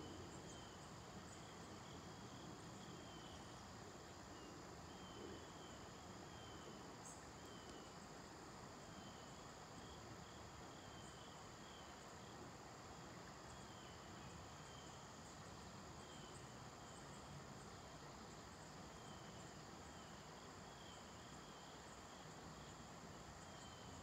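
Near-silent outdoor ambience: faint, high insect chirping that repeats every second or so over a low steady hiss.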